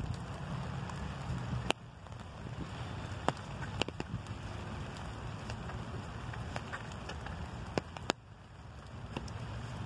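Light rain falling on an umbrella, a steady patter with a low rumble beneath it, and now and then a single larger drop tapping sharply on the canopy, about five times.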